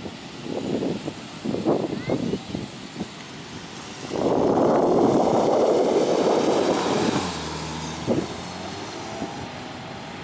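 Subaru Liberty wagon driving on soft beach sand and dunes, its boxer engine running under irregular gusts of rushing noise. The rushing is loudest for about three seconds starting some four seconds in.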